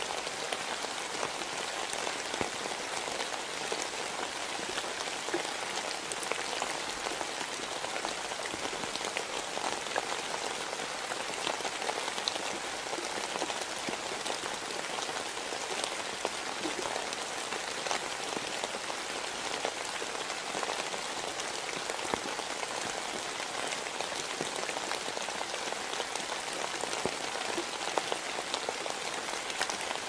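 Steady rain falling in a forest: an even hiss of rainfall with many single drops ticking sharply over it.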